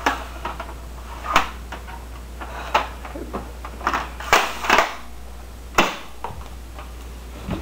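Plastic toy shotgun being caught and handled: a series of sharp clacks and knocks, several bunched together past the middle.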